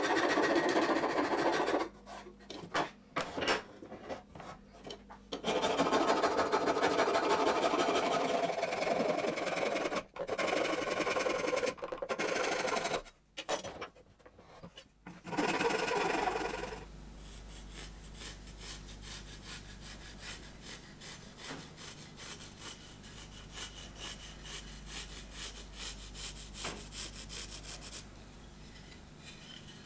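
Wood rasp shaping the curved wooden handle of a shop-made kerfing plane held in a vise. It goes in runs of coarse scratching strokes with short pauses. About halfway through it gives way to quieter, finer rubbing over a low steady hum.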